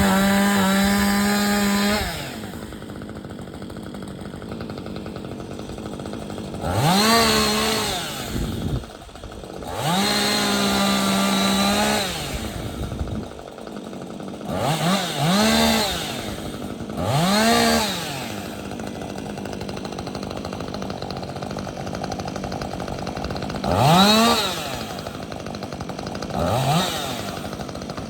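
Chainsaw running and being throttled repeatedly: it screams at full speed for a couple of seconds at a time, near the start and again about ten seconds in, with shorter rev-ups in between that sweep up and fall back to a lower idle.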